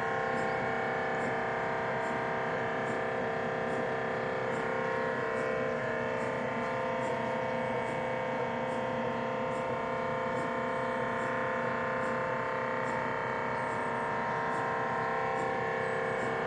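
MRI scanner in a mobile trailer running a scan, heard from outside through the trailer walls: a steady droning hum of several tones held at one pitch, with a faint regular ticking.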